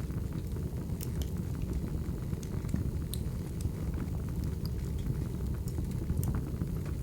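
Wood fire burning: a steady low rumble of the flames with scattered sharp crackles and pops.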